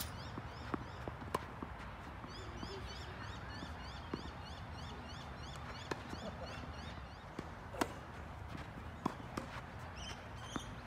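Tennis rally: a tennis ball struck by rackets and bouncing on the court, sharp pops a second or two apart, the loudest near the end. A bird chirps rapidly in the background, a quick run of high repeated notes in the middle.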